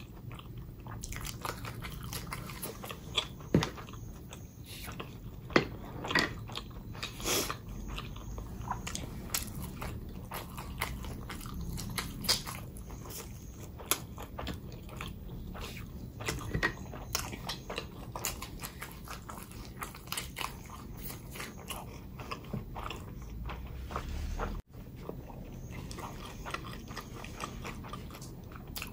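Close-miked eating: a person biting and chewing food. Many small sharp clicks and snaps come through, with occasional crunches.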